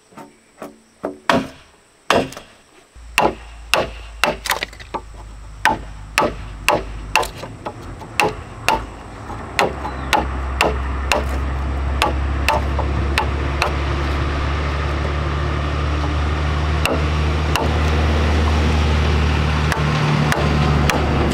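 A wooden mallet striking a chisel to cut a mortise into a round log post, with sharp knocks about twice a second. About three seconds in a low engine drone starts, and from about ten seconds in it grows louder and covers the blows.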